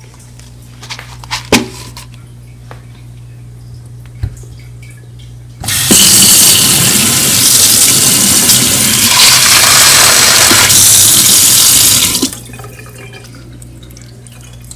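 Kitchen tap running water into a microwave macaroni cup in a stainless steel sink, filling it. The steady rush of water starts about six seconds in and stops abruptly about six seconds later, with faint handling sounds before and after.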